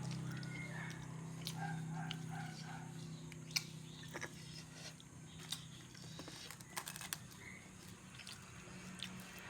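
Someone eating: chewing, with scattered sharp clicks spread through, over a steady low hum. Near the start comes a short run of four quick pitched notes, like an animal's call.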